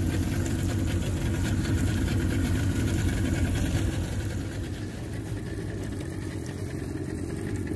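Boat motor running steadily at low, idling speed, a low hum that drops slightly in level about halfway through.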